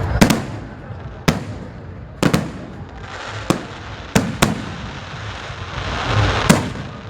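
Fireworks going off: about eight sharp bangs at irregular intervals, over a constant background of distant crackle and rumble.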